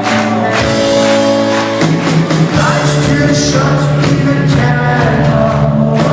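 Rock band playing live: a steady drum beat under sustained chords, with singing.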